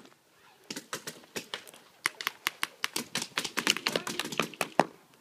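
Paintball markers firing in rapid, irregular strings of sharp pops: a few scattered shots at first, then heavy firing from about two seconds in that stops shortly before the end.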